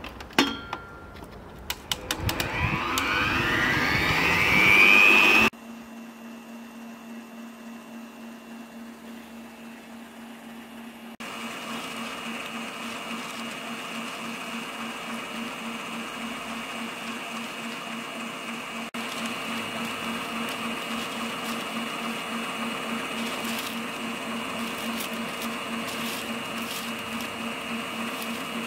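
Electric stand mixer with a wire whisk in a steel bowl: after a few clicks, its motor whine rises in pitch as it speeds up. It then breaks off suddenly to a steady, lower hum with a regular pulsing.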